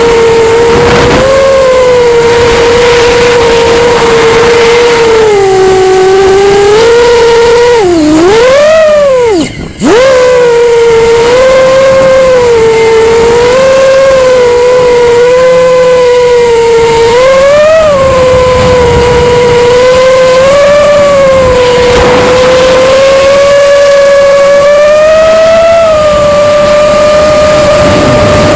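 Brushless motors and propellers of a 5-inch FPV quadcopter whining loudly, recorded on the drone itself, the pitch shifting up and down with the throttle. About nine seconds in, the whine dips low and swings back up, then cuts out almost completely for a moment before the motors surge back.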